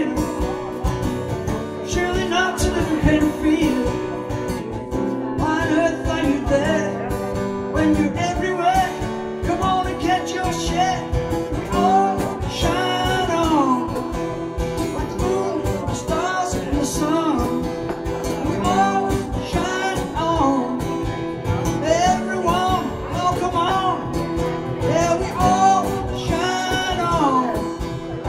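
A man singing a song live to his own strummed acoustic guitar.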